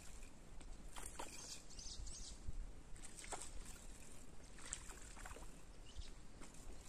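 Scattered short water splashes from a hooked snakehead (haruan) thrashing at the surface as it is played on the line.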